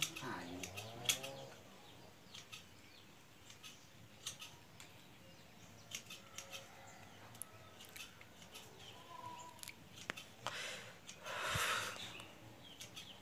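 Pruning scissors snipping the small shoots of a seribu bintang (Serissa) bonsai: short, sharp clicks at irregular intervals. A louder burst of noise comes near the end.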